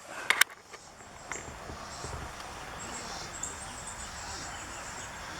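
Steady chirping of insects such as crickets in the background. Two sharp clicks come about a third of a second in.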